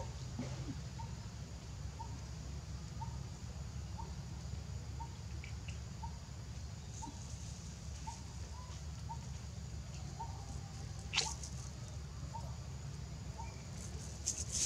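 Short high peeps repeated evenly about twice a second, an animal call, over a steady low rumble, with a single sharp click about eleven seconds in and faint high chirps near the end.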